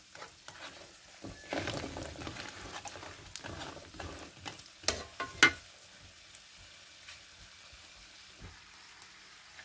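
Sweet potato chunks frying in hot oil in a wok: a loud sizzle as the batch goes in and is stirred with a metal spatula, with three sharp clacks of the spatula against the wok about five seconds in, then a quieter steady sizzle.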